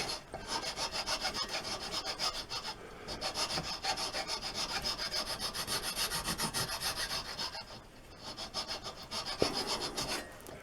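Round file rasping back and forth across wood in quick, even strokes, about five a second, with a couple of short pauses, shaping a rounded profile on a wooden patch piece.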